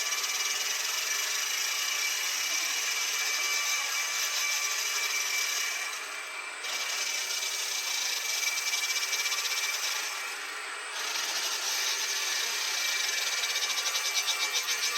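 Machine tool cutting metal: a steady, hissing cutting noise with a thin high whine. It drops off briefly twice, about six and ten and a half seconds in.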